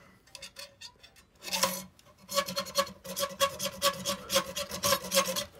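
Hacksaw cutting a metal plate clamped in a vise: a few light strokes, then a steady run of quicker back-and-forth strokes from about two seconds in, with a faint ringing note under the rasp.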